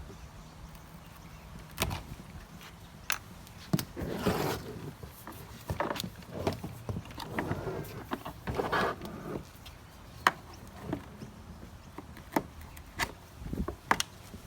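Flat-blade screwdriver prying metal spring clips off a plastic headlight housing: scraping and handling noise with a series of sharp clicks as the clips pop off.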